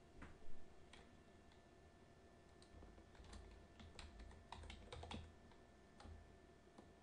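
Faint computer keyboard typing: a scatter of short key clicks, most of them bunched together about three to five seconds in.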